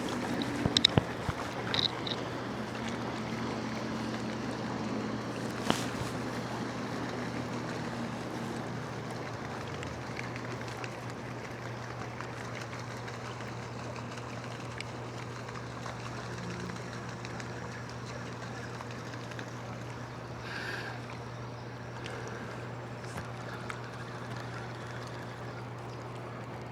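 Water sounds around a small aluminum boat on a river, with a steady low hum underneath and a few sharp knocks about a second in and again around six seconds in.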